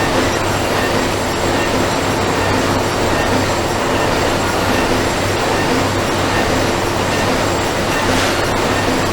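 Factory floor ambience: a steady, unbroken din of running machinery with a constant low hum and a few steady tones.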